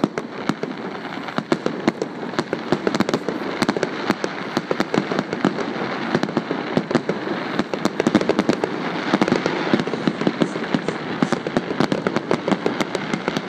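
Fireworks display going off in a rapid, continuous barrage of cracks and bangs, many per second, over a steady crackling rumble.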